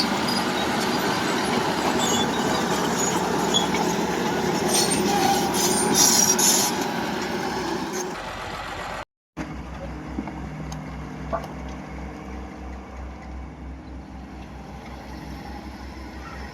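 A heavy earth-moving machine's diesel engine works under load, with clanking and scattered high metallic squeaks. After a brief cut about nine seconds in, a diesel engine runs more quietly with a low, even throb.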